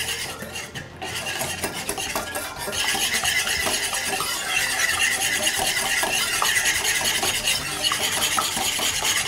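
Wire whisk beating eggs and sugar in a ceramic bowl for a flan custard: rapid, continuous strokes of the wires scraping and clinking against the bowl, louder from about three seconds in.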